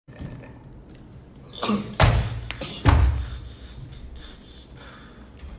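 A young man sneezing twice in quick succession, loud and close to the microphone, the first sneeze about two seconds in and the second under a second later, each preceded by a short pitched intake of breath.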